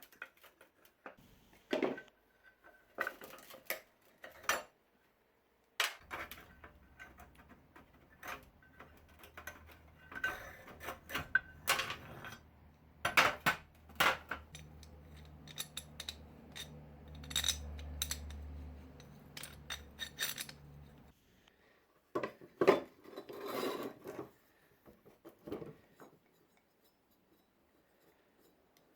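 Metal parts and tools clinking and knocking as they are handled, in scattered sharp strikes. A low steady hum starts about six seconds in and stops about two-thirds of the way through.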